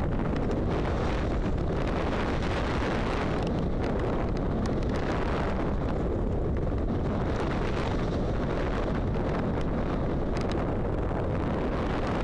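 Wind rushing over the microphone of a camera mounted on a flying HQ Fazer XXL power kite: a steady low buffeting that swells and eases every couple of seconds as the kite swings through the air.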